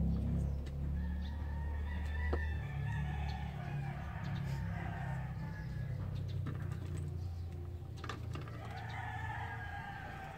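Rooster crowing twice, about a second in and again near the end, over a low rumble.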